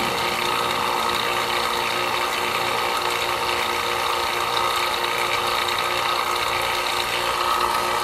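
Refrigeration vacuum pump running steadily as it evacuates a heat pump's refrigerant system, the vacuum still coming down at around 1,600 microns.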